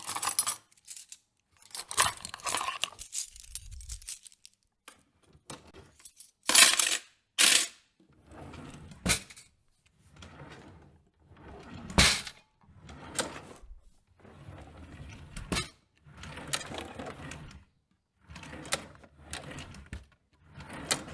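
Assorted kitchen handling noises: metal utensils and dishware clinking, clattering and knocking in a string of short separate bursts, a few of them sharp knocks that ring on briefly, with short pauses between.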